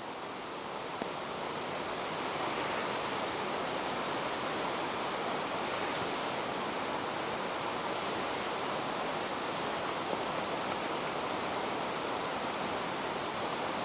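Steady rushing of running water, an even hiss with a few faint ticks scattered through it.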